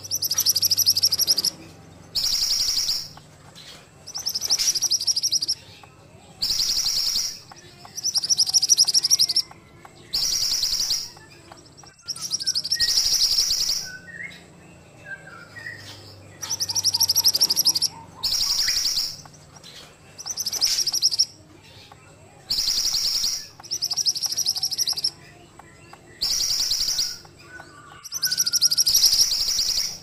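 A caged mantenan songbird singing a series of high, rapidly trilled song phrases, each about a second long, repeated roughly every two seconds with short pauses between.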